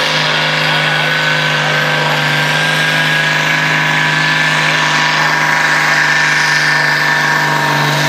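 Diesel pulling tractor running flat out under load as it drags the weight sled, a loud steady engine note with a high whine that slowly rises in pitch.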